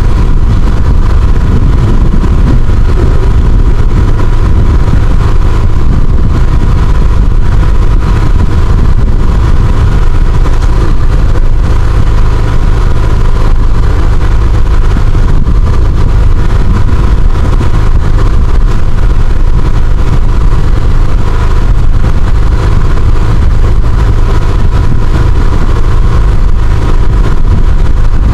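Engine aboard a motorised outrigger fishing boat (bangka) running loudly and steadily, a deep even drone with a thin steady whine above it.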